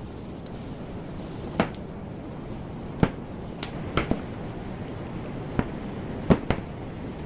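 Scattered light knocks and taps, about eight at irregular intervals, over a steady low hum.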